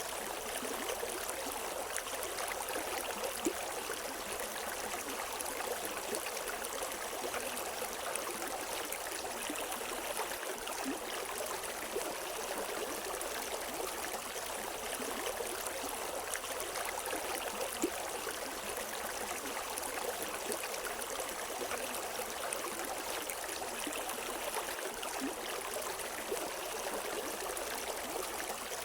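River water running over stones, a steady rushing and gurgling with small splashes, without birdsong.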